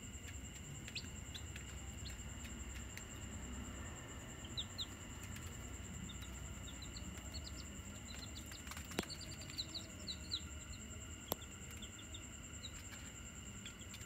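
Newly hatched bantam chicks peeping: scattered short, high peeps, thickest through the middle, with two sharp clicks a few seconds apart in the second half.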